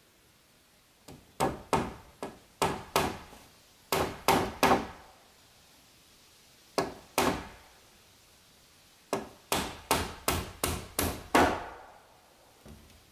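Claw hammer nailing a rough-sawn wooden cladding board: sharp blows in four runs of two to eight strikes, with short pauses between.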